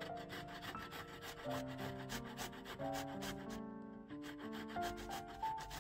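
Cucumber being grated on a stainless steel box grater: quick repeated rasping strokes with a brief pause about four seconds in. Soft background music plays under it.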